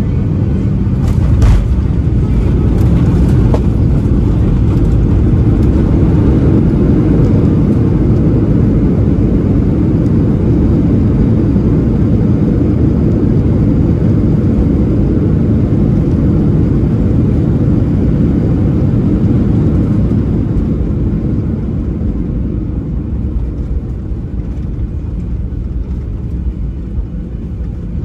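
Boeing 737-800 landing, heard from inside the cabin over the wing. A thump about a second and a half in marks touchdown. Then comes the loud, steady rumble of the CFM56-7B engines in reverse thrust and of the tyres on the runway, easing off over the last several seconds as the engines spool down and the jet slows.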